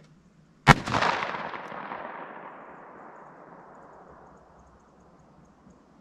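A single shot from a .45 Colt handgun firing a Hornady Critical Defense 185-grain load, about a second in, followed by a long rolling echo that fades away over several seconds.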